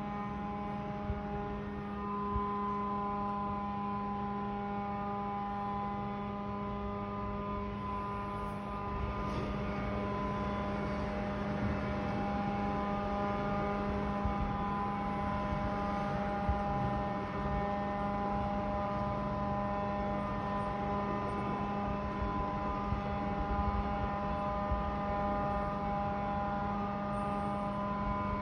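A loud, steady droning hum: one low pitched tone with a ladder of fainter higher tones above it, over a low rumble, unchanging throughout.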